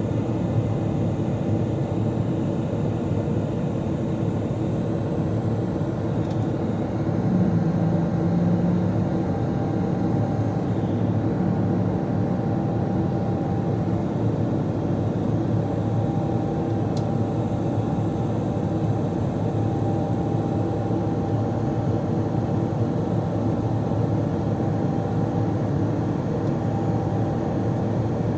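Boeing 777-200LR's GE90 turbofan engines and the airflow over the airframe during the climb after takeoff, heard inside the cabin as a steady drone.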